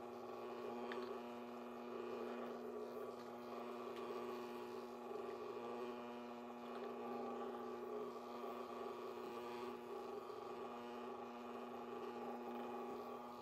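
Steady hum of the Disney Mickey Ears stirring popcorn popper's motor turning its stirring arm through hot bacon grease, with faint sizzling.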